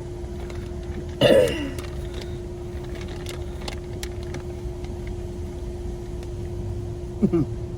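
A person burps loudly about a second in, and briefly again near the end, after chugging a fizzy soda. Under it run the steady drone and hum of a car's cabin.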